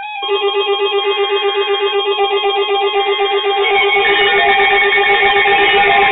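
Several NOAA weather alert radios sounding their alert alarms at once: layered electronic beeping tones that pulse rapidly. More alarm tones join about four seconds in.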